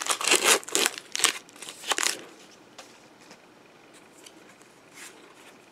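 Foil wrapper of a Pokémon booster pack crinkling and rustling for about two seconds as the cards are pulled out, then a few faint ticks of cards being handled.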